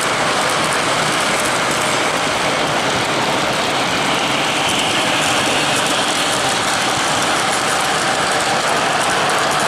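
O-gauge model trains rolling along the track: a steady whir and rumble of wheels and motors as the cars pass.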